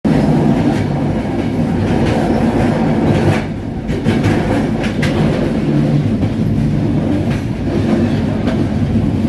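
Train running along the rails, heard from on board: a loud, steady rumble of the wheels with scattered clicks, the clickety-clack of the wheels on the track. The rumble eases briefly about three and a half seconds in.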